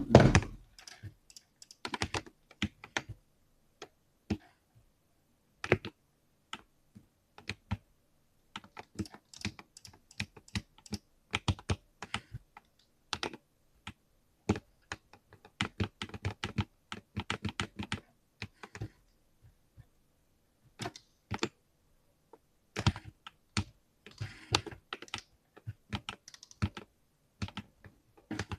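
Typing on a mechanical keyboard: irregular runs of sharp key clicks with short pauses between them, opening with one louder low thump.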